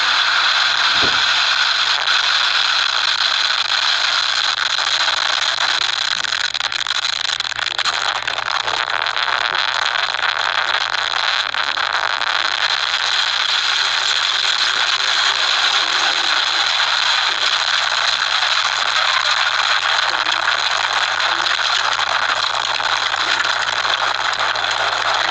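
Tornado-force wind and rain blasting the microphone, a loud, steady hissing roar, with one brief low thump about a second in.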